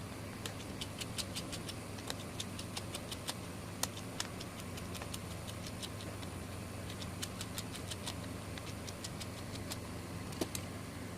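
Irregular small clicks and taps of repair tools on a Samsung Galaxy A3 (2016) smartphone's parts during disassembly, in uneven clusters, over a steady low hum.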